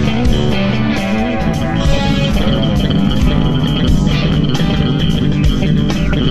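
Live instrumental rock-fusion band playing: lead electric guitar lines over bass guitar and drums.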